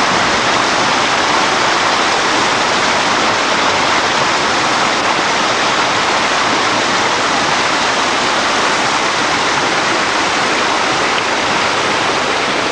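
Fast white water rushing over rocks in a stream: a loud, steady rush.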